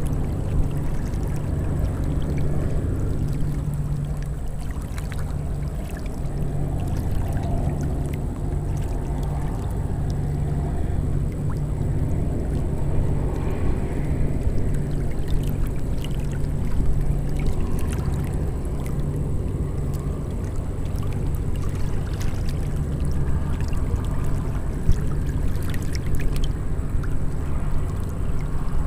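Small choppy waves lapping and splashing close to the microphone, over a steady low rumble.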